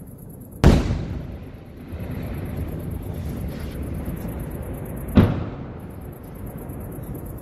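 Aerial firework shells bursting: two loud booms about four and a half seconds apart, each trailing off, with a low rumble continuing between them.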